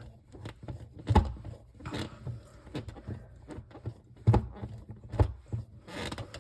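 Handling noise as an old-work electrical box is pushed and fitted into its hole in the sheetrock: scattered knocks and scrapes, the loudest about a second in and twice more around four and five seconds in.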